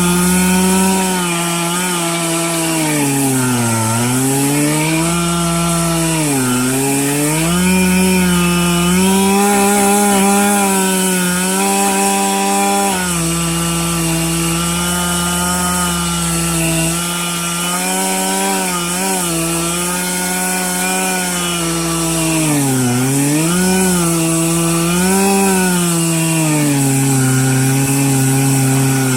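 Stihl MS 441 C-M Magnum two-stroke chainsaw running near full throttle as it rips through a red oak log, its pitch dipping and recovering several times as the engine bogs under the load of the cut. Near the end the pitch drops and stays lower.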